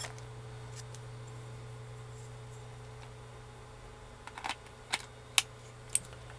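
Lens change on a Fujifilm X-E3 mirrorless camera: after a few quiet seconds, a handful of short, sharp clicks from about four seconds in as the kit lens comes off and the 7Artisans 12mm f/2.8 lens and caps are handled and clicked onto the X-mount. The loudest click comes about halfway through the run.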